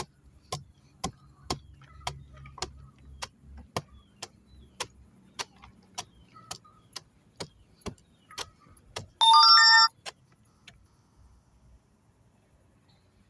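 Hammer tapping at rotten wood to knock out the decayed part, short sharp blows about two a second that thin out after about eight seconds. About nine seconds in, a loud electronic jingle of stepped tones sounds for under a second.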